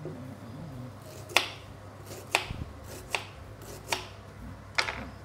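Kitchen knife slicing fresh ginger on a wooden chopping board: five sharp cuts, each ending in a knock on the board, a little under a second apart.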